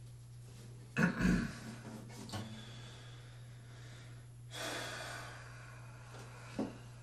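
A man's breaths and sniffs, with a thump about a second in and a short click near the end, over a steady low hum.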